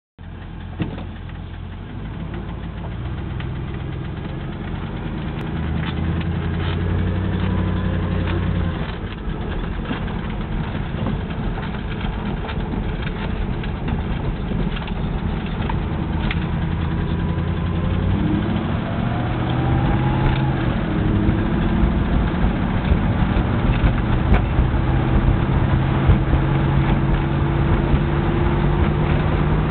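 Triumph Stag's 3.0-litre V8 engine running as the car is driven, still cold, with an engine knock that is starting to quieten as it warms up. The engine note holds steady, then shifts in pitch a few times.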